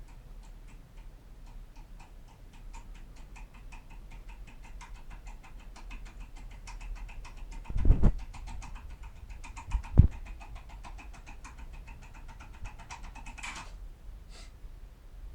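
Foil impressioning lockpick being worked in a KALE 6-pin cylinder lock: a rapid run of small metallic clicks as the tool is loaded hard back and forth. Midway there are two heavier knocks a couple of seconds apart, as the tool slips under the hard pressure.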